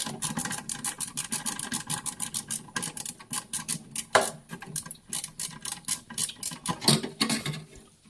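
A screwdriver undoing the screw that holds a refrigerator thermostat's sensing bulb to the freezer, making a fast, fairly even run of clicks, about seven a second.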